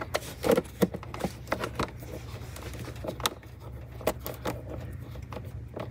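Irregular small metallic clicks and taps from hands handling a nut and cable terminal on a car's negative battery bus bar, over a steady low hum.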